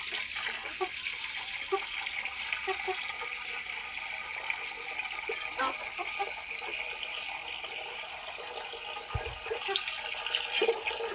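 Water pouring from a garden hose into a metal bowl of water, a steady splashing trickle.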